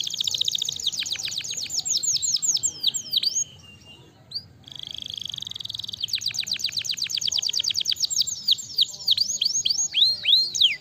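Domestic canary singing: rapid trills of quick downward-sweeping notes, with a brief pause about three and a half seconds in, then a very fast, even trill followed by slower, more spaced sweeping notes.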